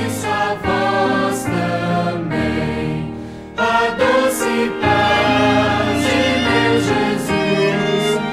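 Background music: a choir singing a slow sacred piece, dipping briefly and then swelling louder about three and a half seconds in.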